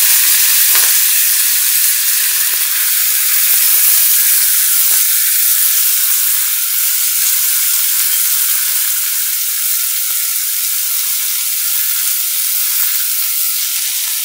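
Chopped fresh spinach sizzling in hot oil in a kadhai, just added onto fried garlic, green chillies and cumin: a steady hiss that eases a little as it goes on.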